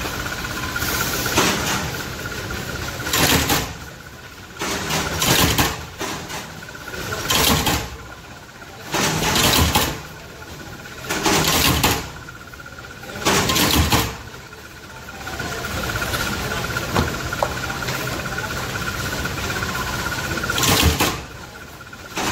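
Flywheel-driven mechanical power press running with a steady hum, striking about every two seconds as it punches slipper soles out of a foam sheet. The strokes stop for about seven seconds, then one more comes near the end.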